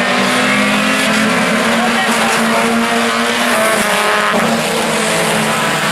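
A field of IMCA Sport Compact four-cylinder race cars racing, several engines running together in a steady, loud blend.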